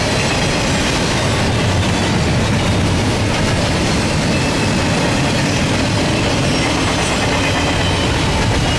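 Double-stack intermodal well cars rolling past at speed: a loud, steady rumble and clatter of steel wheels on the rails, with faint high wheel squeal.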